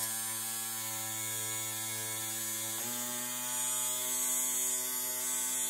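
Small brushed DC motor from an HP inkjet printer, fitted in a 3D-printed plastic housing, running fast with a steady pitched whine. About three seconds in the pitch steps up and it gets a little louder as the supply voltage is raised toward 12 volts.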